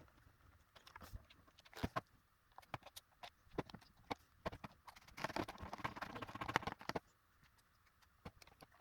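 Small clicks and taps of a screwdriver and screws being worked back into a Dyson V10 stick vacuum's plastic battery housing, with a quick run of rapid clicking about five seconds in.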